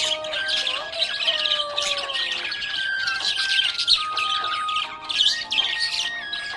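Budgies chirping and squawking in a rapid, continuous chatter over background music with a held, stepping melody.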